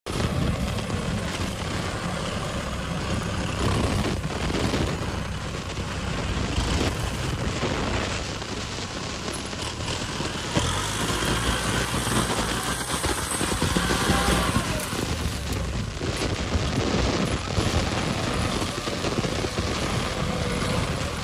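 Kubota M6040SU tractor's four-cylinder diesel engine running steadily as the tractor moves across the field, a continuous rapid diesel clatter that swells and eases slightly in level.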